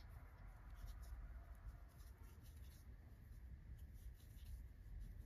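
Faint scratching and rustling of a crochet hook drawing yarn through stitches: light, irregular strokes, several a second, over a low room rumble.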